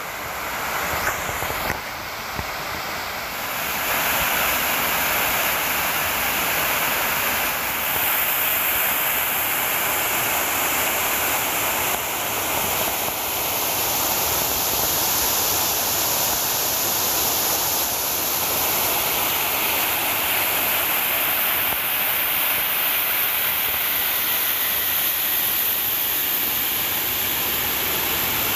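Steady rush of water from a wide waterfall pouring into a creek, louder after the first few seconds. A few light knocks come in the first two seconds.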